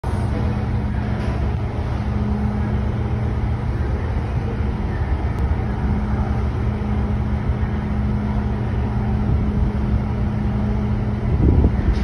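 Steady low machinery hum from the train ferry, with a constant droning tone over a low rumble. Near the end, wind buffets the microphone.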